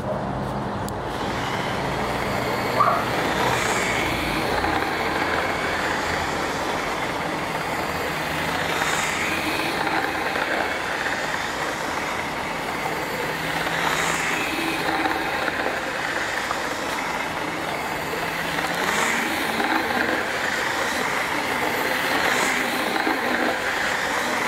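LIMA H0-scale model DB class 218 diesel locomotive running around an oval of track, its electric motor and wheels making a steady whirring rattle, with a faint click recurring about every five seconds. A brief sharp knock about three seconds in.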